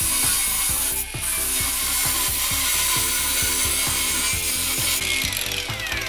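20 V cordless 125 mm angle grinder with a thin cut-off disc cutting through steel rebar, a loud grinding hiss with a brief dip about a second in. Near the end the cut finishes and the disc spins down with a falling whine.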